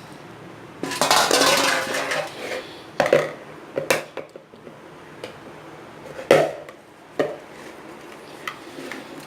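Kitchen dishes and a bowl being handled while the cut chicken is put into the masala: a clattering, rustling stretch about a second in, then a few separate sharp knocks and clinks of dishware.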